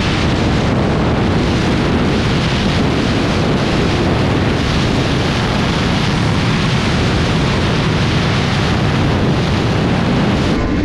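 Heavy wind rush on the microphone at freeway speed, over the steady running of a BMW S1000R's inline-four engine cruising.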